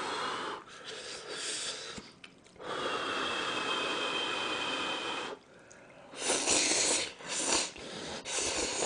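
Ramyeon noodles slurped up from chopsticks in long, drawn-in slurps. The longest runs about three seconds with a thin whistle in it, and shorter, louder slurps follow near the end.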